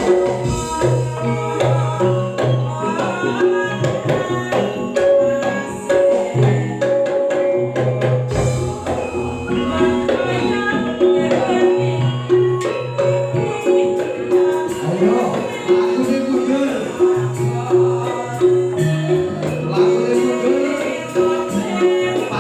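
Campursari music: a Javanese ensemble playing with hand-drum percussion over held pitched notes and a repeating bass line.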